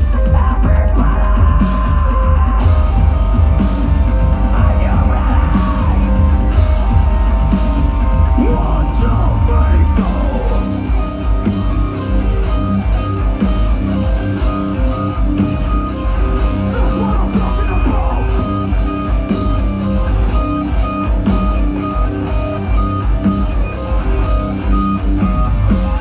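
Metalcore band playing live and loud: distorted electric guitars, bass and drum kit. About ten seconds in, the dense wall of sound gives way to a choppier, stop-start riff.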